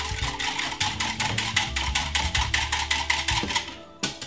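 Wire whisk beating malt punch in a glass measuring jug: rapid, even clinks at about six a second that stop near the end, with one last tap just after. Background music plays underneath.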